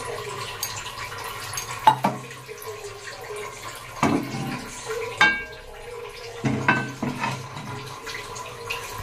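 A few sharp metallic knocks and clinks of cookware against a steel gas stove, some ringing briefly, over a steady background hiss.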